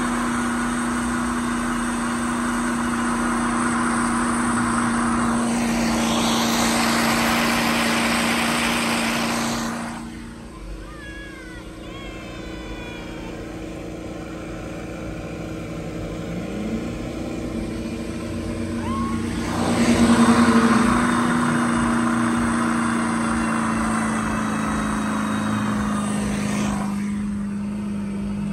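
Mud truck engine held at steady high revs, a constant drone. Over it, the rush of spinning tyres throwing mud swells twice, loudest a few seconds in and again near the two-thirds mark, and drops back in between.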